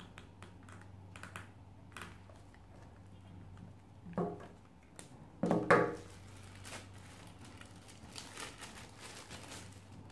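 Plastic breast pump parts (bottles, flanges and tubing) being handled and set down on a table: scattered light clicks and taps, with two louder bumps about four and five and a half seconds in.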